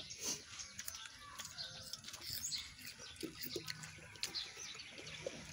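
Faint crunching of raw jicama being bitten and chewed, heard as scattered small clicks and crackles.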